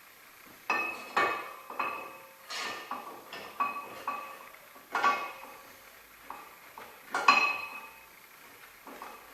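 Irregular metal clinks and clanks of tools or parts being handled, each with a short ring. There are about a dozen strikes, the loudest about a second in, about five seconds in and about seven seconds in.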